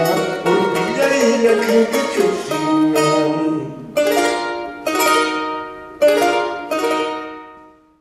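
Charango played: a quick plucked melody for about three and a half seconds, then four strummed chords about a second apart, each left ringing. The last chord fades away to silence, closing the piece.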